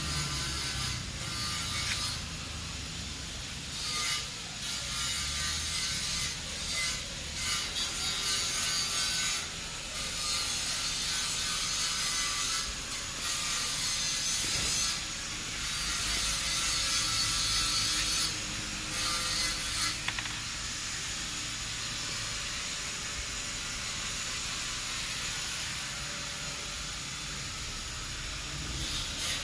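Hand-tool work: scraping and rubbing in uneven stretches with short pauses.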